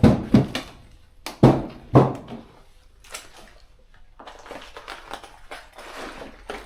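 Footsteps crunching through debris and rubble on the floor: four loud crunching steps in the first two seconds, then softer, irregular crunches and clatter.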